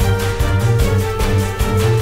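Instrumental background music with a steady beat and a strong bass line.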